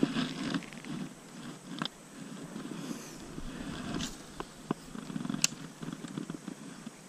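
Rough, low rustling of leafy brush and footsteps as a person pushes through waterside vegetation, with a few sharp clicks.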